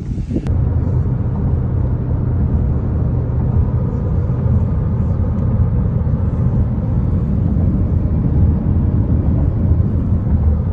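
Steady low road and engine rumble heard inside a passenger car's cabin at highway speed.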